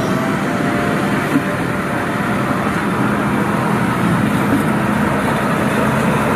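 Valmet 8350 tractor's six-cylinder turbodiesel running at a steady speed.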